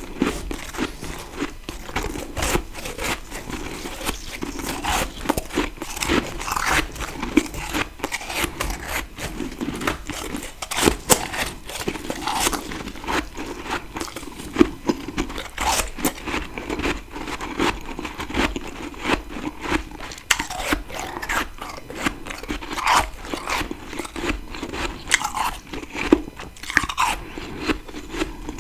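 Close-miked biting and chewing of freezer frost: a dense, continuous stream of crisp crunches and crackles.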